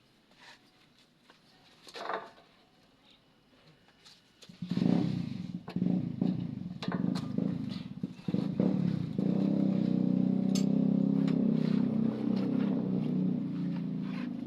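A motor starts a little over four seconds in, runs unevenly for a few seconds, then settles into a loud, steady hum. A few faint clicks come before it.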